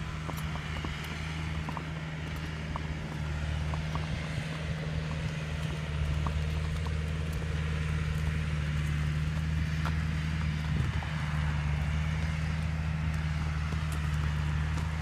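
Steady low engine hum from a running motor, holding one pitch and swelling slightly over the first few seconds, with faint scattered clicks of horses' hooves walking on the road.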